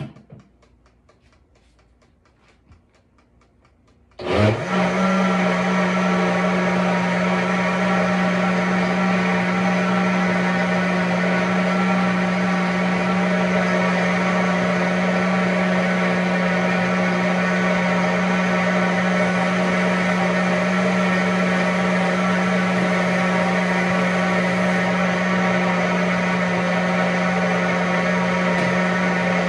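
Short knock at the start, then about four seconds in a high-speed countertop blender starts, its motor spinning up quickly and then running steadily on its smoothie setting, liquefying beetroot and carrot into juice.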